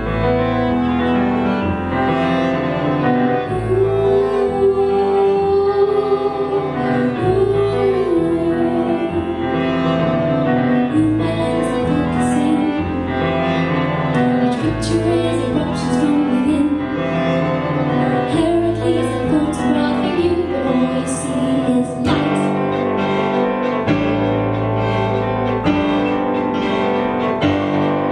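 Live folk band playing: a bowed violin line over electric keyboard and double bass, with held and sliding notes.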